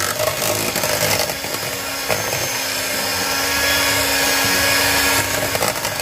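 Electric hand mixer running steadily, its beaters whipping boiled potatoes, butter and milk into mash in a stainless steel pot.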